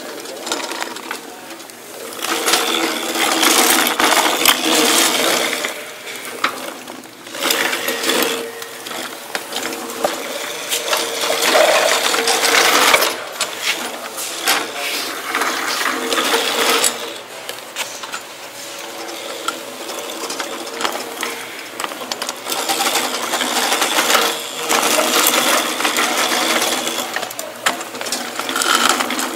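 Push reel mowers, a Fiskars StaySharp Plus and then a Troy-Bilt Revolution Quiet Cut, rolled and turned on smooth concrete. The spinning reel and drive gears make a rapid clicking whir in stretches of a few seconds, with short quieter pauses between them.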